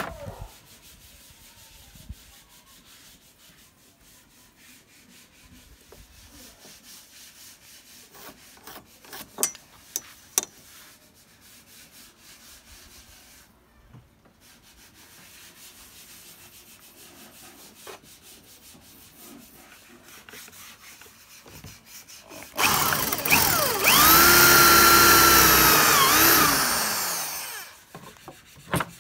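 Light knocks and clicks of wood and tools being handled for about twenty seconds, then an electric drill runs for about five seconds, its pitch rising as it starts, holding steady, and falling as it winds down.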